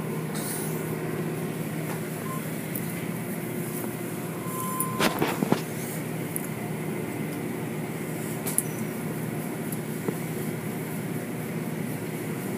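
Automatic car wash running: a steady machine hum with spraying water and soft-cloth brushes sweeping over a car, and a few knocks about five seconds in.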